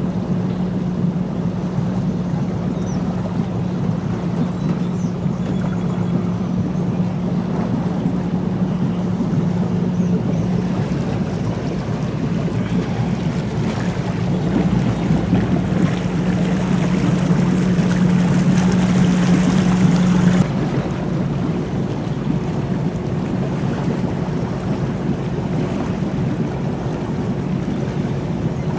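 Engine of a 32-foot cabin cruiser running at steady cruising speed, a constant low drone over a hiss of water and wind. About two-thirds of the way in the sound shifts abruptly: the drone's strongest note drops away and the hiss eases.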